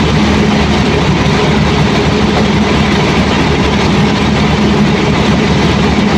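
Caterpillar C15 inline-six diesel engine of a generator set running steadily at constant speed. The technician judges the engine sound not good and suspects a misfire.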